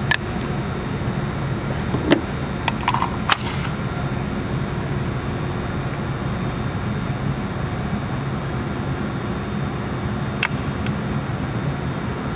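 A steady low hum, like a ventilation system, with a handful of sharp clicks and knocks: several in the first few seconds and one more about ten seconds in.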